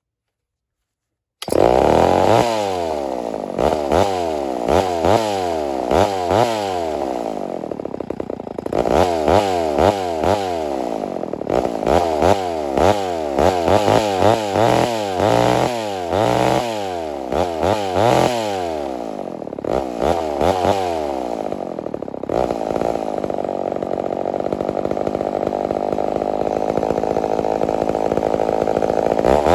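Homelite Super XL-923 82cc two-stroke chainsaw, stock and not yet ported, coming in suddenly about a second and a half in and being revved up and down about once a second. For the last several seconds it holds a steadier high speed.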